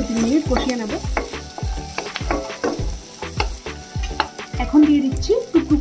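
Wooden spatula stirring and scraping in a kadai in repeated strokes, as chopped onion, cashews, garlic, ginger and dried red chillies sizzle and fry in butter.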